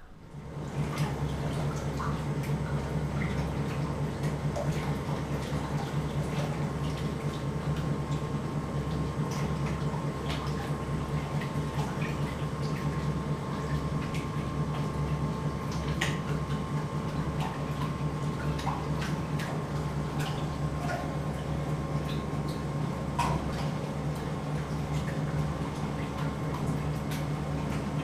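Underwater treadmill running with a steady low machine hum. Water sloshes and splashes now and then as a dog walks through it on the submerged belt.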